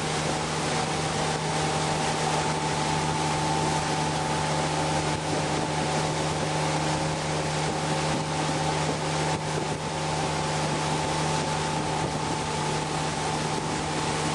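Tow boat's engine running at a steady speed, a constant drone, with the rush of water and wind over it.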